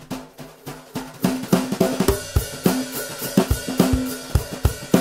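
A stripped-down drum kit played in a steady groove: a cajon used as the kick drum with a pedal beater, a piccolo snare and hi-hats. The playing is sparse for about the first second, then settles into an even beat with the hi-hats hissing between regular low kick strikes.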